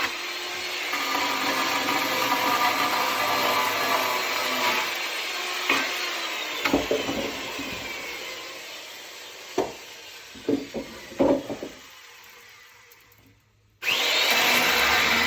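Electric chainsaw cutting firewood, then the motor winds down with a falling whine. A few sharp wooden knocks follow, and near the end the saw noise starts again abruptly.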